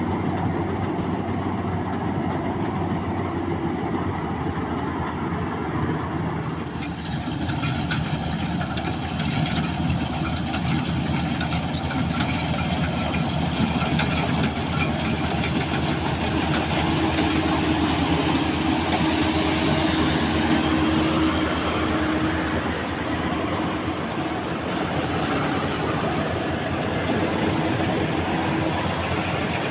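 Combine harvester engine and machinery running steadily. About six seconds in, a brighter, higher-pitched clatter and hiss joins the engine hum.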